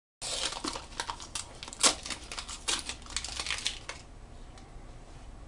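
Paper masking being peeled by hand off a clear flexible PVC sheet: a run of crinkling and tearing with sharp crackles, the loudest about two seconds in. It dies down to faint handling after about four seconds.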